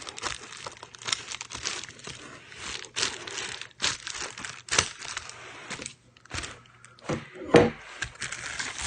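Packaging being torn open by hand: irregular crinkling and tearing, with a louder crunch near the end.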